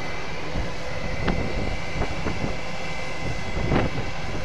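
Jet airliner engines running: a steady rush with a thin, steady high whine, from an Airbus A320 taxiing and a Boeing 777 on its landing rollout. A few short knocks sound over it.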